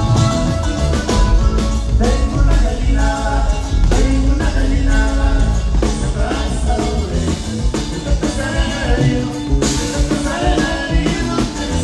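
Norteño band playing live music with a steady beat and strong bass.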